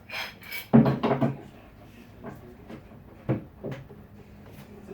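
Wooden cabinet parts being handled in a workshop: a scraping rub of wood on wood about a second in, followed by a few separate sharp knocks.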